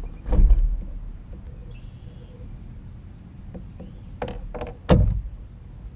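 Knocks and thumps on a fishing kayak as the angler shifts about in it: one loud thump about half a second in, then a quick run of lighter knocks and a second loud thump near the end, over a low steady rumble.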